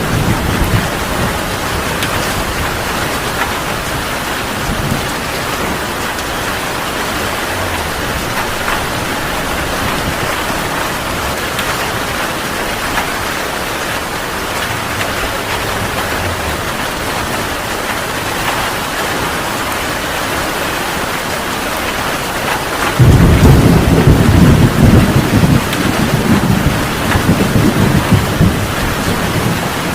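Heavy rain falling steadily in a thunderstorm. About three-quarters of the way through, a loud rolling thunder rumble breaks in and keeps rolling.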